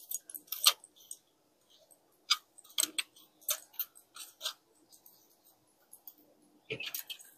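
Plastic parts of a rotating jewelry organizer clicking and tapping as they are handled and pushed together: scattered light clicks, a quiet stretch, then a few more clicks near the end.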